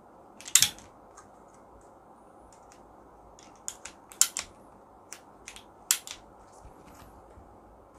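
Sharp plastic-and-metal clicks of an Ulanzi SK-04 aluminium tripod's legs being handled and set into their angle-lock positions. A loud double click comes about half a second in, then a string of quicker clicks between about three and a half and six seconds in.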